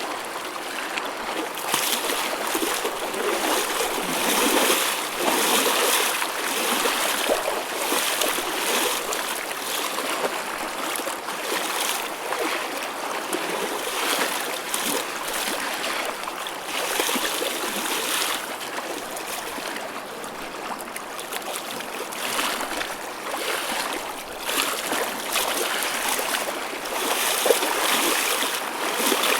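Choppy ocean waves: a continuous wash of splashing water that swells and eases every few seconds, with little deep rumble.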